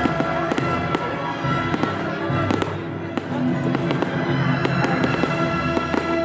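Fireworks display: shells bursting and crackling in quick succession, many bangs a second, over music with held notes.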